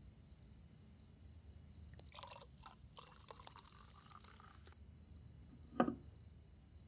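Crickets chirring steadily. About two seconds in, liquor is poured into a glass for some two and a half seconds. Near the end a glass is set down on a table with a sharp knock.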